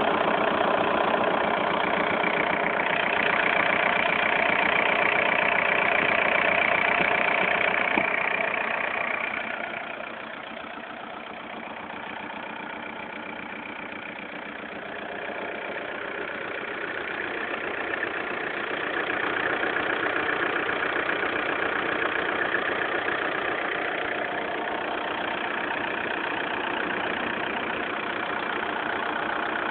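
Volkswagen Golf 4 TDI's four-cylinder turbodiesel running while the car is driven: loud with a high-pitched band for the first nine seconds, falling off about ten seconds in, then rising again about eighteen seconds in as it picks up.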